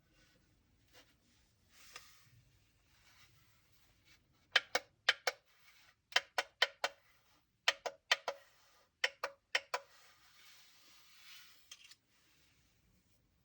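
Handling sounds from an unboxing: a run of sharp clicks or taps in quick groups of three or four, then a soft rustle near the end.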